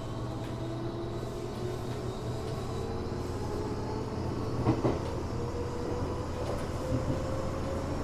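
Running sound inside a Tokyo Metro 7000 series armature-chopper train: traction motor and gear whine over a steady low rumble, the whine climbing slowly in pitch as the train gathers speed. The car is known for a light 'jet sound' whine, an unusual noise for this series. A short clatter of wheels over rail joints comes about two thirds of the way in.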